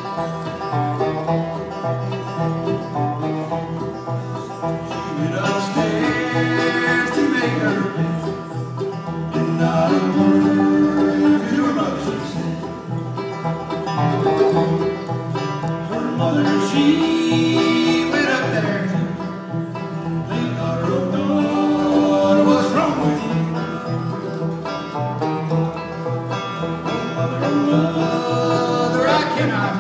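Live bluegrass band playing, with banjo, acoustic guitars and upright bass.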